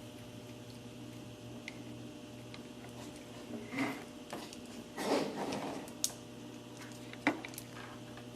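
Steady low electrical hum from the 862D+ soldering and hot air rework station. Two short scraping, hissy noises come near the middle and two sharp clicks follow, from working on a circuit board.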